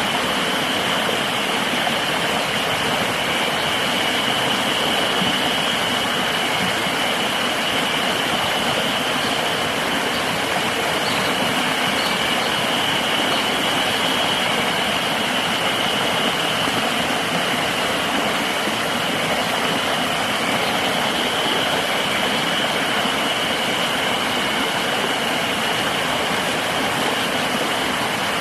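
Steady rushing river water, with a constant high insect drone running over it.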